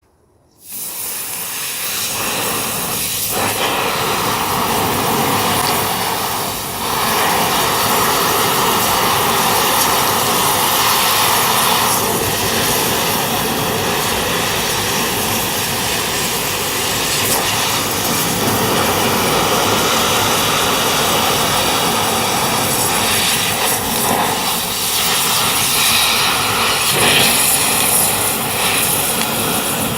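A blower's motor running steadily, driving a strong rush of air onto a fire to fan it up. It starts abruptly about half a second in.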